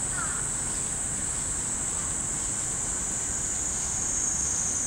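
Cicadas in the trees, a steady high-pitched chorus that shifts slightly lower in pitch near the end.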